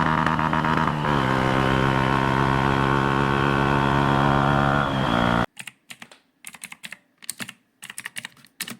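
Bajaj Pulsar NS 125's single-cylinder engine idling steadily, settling slightly lower in pitch about a second in, then cutting off abruptly. After that comes a quiet run of sharp, irregular clicks.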